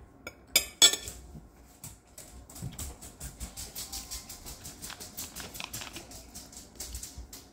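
A large plastic drink bottle is handled: two sharp clicks about half a second in, then a long run of quick, even ticks, about six a second, while the bottle is held.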